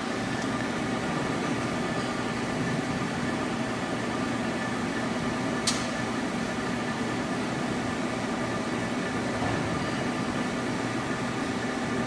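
Steady hum of powered-up machinery, with a few even tones over a noisy drone. A single sharp click about five and a half seconds in.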